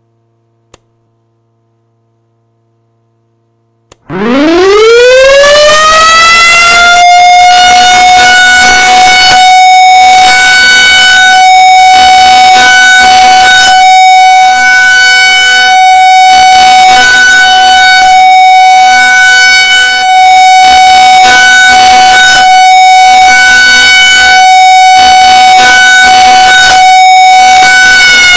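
Federal Signal 2001 electromechanical rotating warning siren starting up about four seconds in after a faint click. It winds up in a fast rising wail and then holds one steady, very loud tone.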